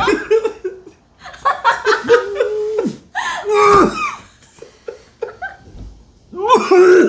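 Human laughter in bursts, mixed with a couple of long held, strained voice sounds, from someone struggling to swallow a mouthful of silkworm pupa.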